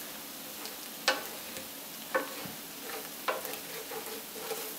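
Beaten eggs sizzling in a hot oiled pan as a wooden spatula stirs and scrambles them. Three sharp knocks of the spatula against the pan come about a second apart.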